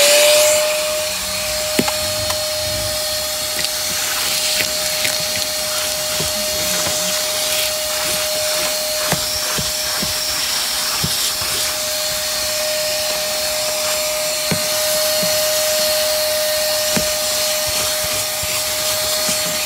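Stanley 4.5-gallon wet/dry shop vacuum running at full speed, a steady motor whine over a rush of air through the hose, with scattered small clicks as the nozzle picks up crumbs from the car's floor carpet.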